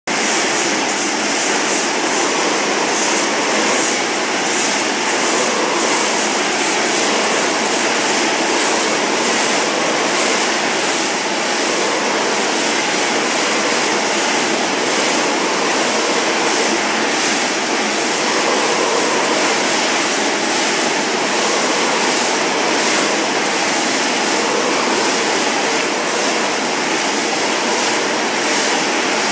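Steady, loud mechanical din of a running pasta packaging line: multihead weighers, bagging machines and a carton case packer working together in a factory hall.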